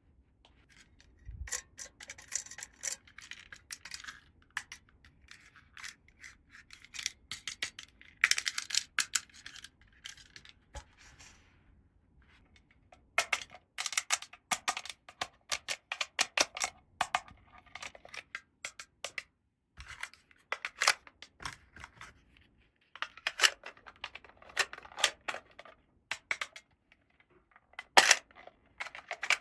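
Small plastic toy pieces being handled and fitted together: runs of rapid clicks, taps and light rattles, pausing briefly about twelve seconds in and again about twenty-two seconds in.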